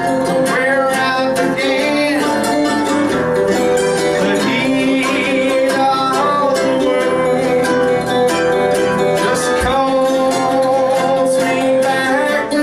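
Live acoustic country-style music: a man singing over strummed and picked acoustic guitar.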